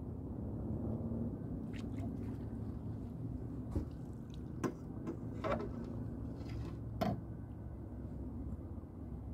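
Water splashing and dripping from a landing net as a fish is netted and lifted aboard. Several short knocks and splashes, the sharpest about seven seconds in, sound over a low, steady rumble.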